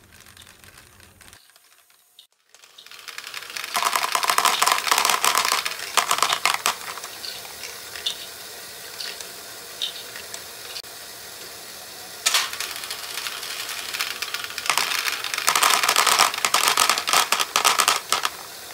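Batches of small plastic Great Ball Contraption balls clattering off a LEGO module's ramp into a clear plastic bin, in dense rattling spells: one starting about four seconds in, another about two seconds later, a short burst near the middle, and a long clatter near the end. The first couple of seconds are quieter, with a brief near-silent gap.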